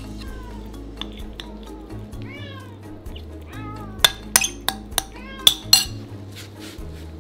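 Cats meowing: a few short arching calls in the first half. About four seconds in come a run of sharp clinks, a metal spoon knocking against ceramic food bowls as wet cat food is scooped out.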